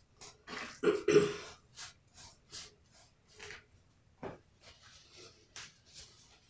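Hands handling a raw salmon fillet on a plastic cutting board, turning it over and rubbing seasoning in: a run of short soft scuffs, with a louder rough burst about a second in. A little after four seconds in comes one sharper rip as a paper towel is pulled off the roll.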